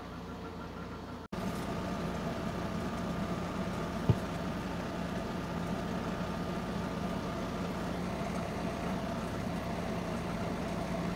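Steady hum of an electric motor running in a woodworking shop, with a few constant tones; it starts abruptly about a second in. One light knock about four seconds in.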